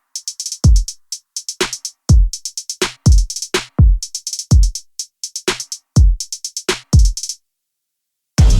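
Background music: an electronic drum-machine beat with deep, falling kick drums and rapid hi-hats. It stops about three-quarters of the way in, and after a second of silence another track with sustained bass notes starts near the end.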